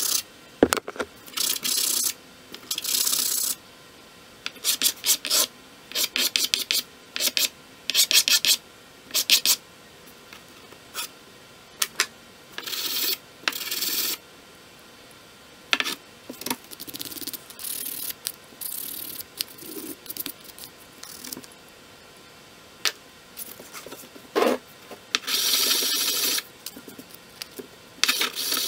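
A small metal hand-plane part rubbed back and forth on sandpaper over a flat board, lapping it flat: runs of quick scraping strokes with short pauses between them, and one knock about half a second in.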